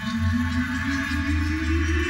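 Electronic logo-intro music: a tone rising steadily in pitch over a pulsing low bass.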